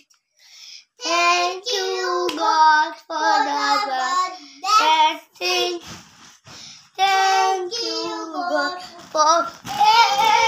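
A young boy singing a children's rhyme without accompaniment, in short phrases with brief breaks between them.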